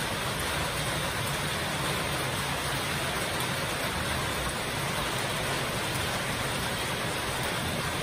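Heavy rain falling steadily on corrugated metal roofs: an even hiss with a low rumble underneath.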